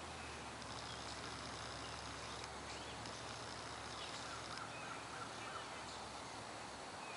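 Quiet pond-side ambience: birds chirping and trilling over a steady background hiss.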